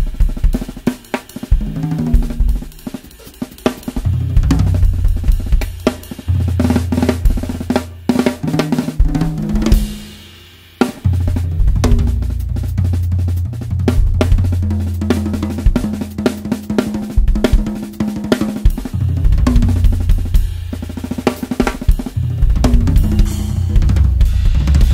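Acoustic drum kit played freely. The five toms (8, 10, 12, 14 and 16 inch) are tuned high, so they ring with clear, almost marimba-like pitches, under a high-tuned snare with small castanets on its head for a crackly snap, plus bass drum, hi-hat and cymbals. The playing breaks off briefly about ten seconds in, then carries on.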